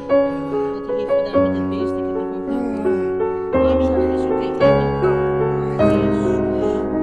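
Slow piano background music: held notes over a bass note that changes every second or so.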